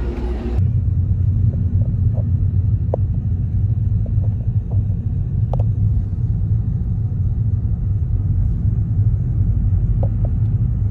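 A loud, steady low rumble with a few faint clicks over it.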